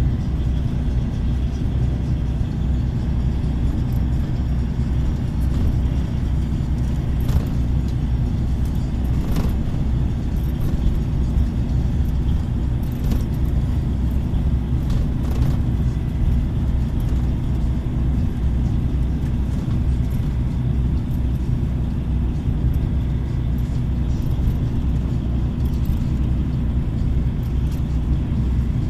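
Steady low rumble of a car driving, engine and tyre noise heard from inside, with a few brief knocks.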